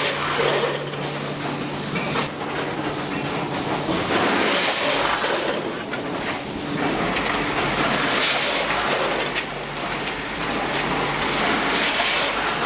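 Multihead weigher running on chicken nuggets: a steady machine hum under a rattling rush of nuggets sliding through the dimple-plate hoppers, swelling about every four seconds.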